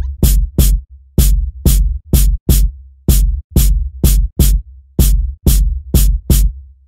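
Loud electronic dance music: a beat of sharp, evenly spaced hits, about three a second, over a deep bass line, with no vocals.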